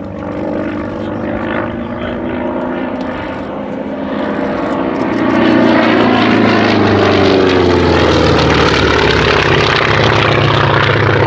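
Propeller aircraft flying past: an FM-2 Wildcat's Wright R-1820 radial engine and propeller. It grows much louder about five seconds in, and its engine note slides in pitch as it passes.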